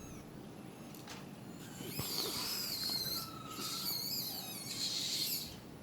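Bird song: high, wavering warbled calls in two phrases, one starting about two seconds in and a second right after it, with a short whistled note between them.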